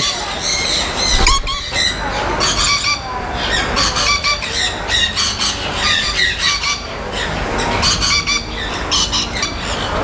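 Parrots squawking and screeching in many short, harsh calls.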